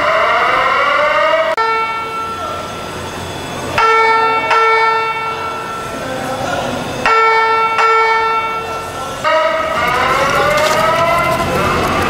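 FireCom 8500 whoop/chime evacuation tone from a voice evacuation fire alarm speaker: rising whoop sweeps, then chime strokes that ring and fade, mostly in pairs, for several seconds, then the whoops come back.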